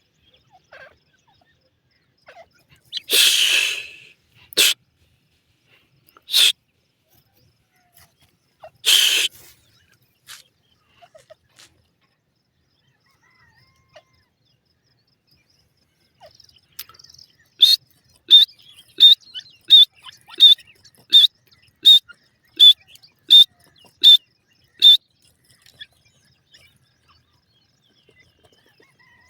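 Snake hissing in a few separate sharp bursts, the longest about a second, then a bird calling in a run of about a dozen short, evenly spaced high notes.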